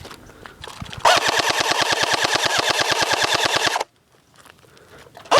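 Airsoft electric gun firing a rapid full-auto burst of about three seconds, each shot a sharp click over the gearbox whine. A second burst starts just before the end.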